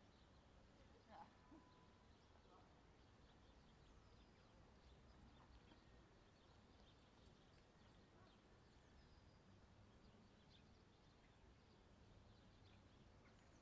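Near silence: faint outdoor ambience of a railway station platform, a low steady background hum with faint high chirps now and then and a brief louder sound about a second in.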